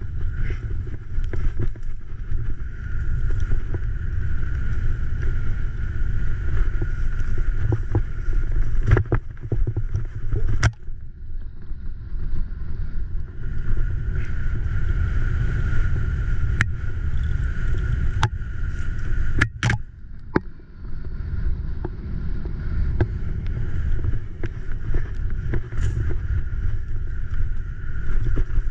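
Wind buffeting an action camera's microphone and the rattle of a Graziella folding bicycle riding fast down a rough, wet dirt and grass trail: a steady low rumble broken by several sharp knocks and clacks as the bike jolts over bumps, a quick cluster of them about two-thirds through.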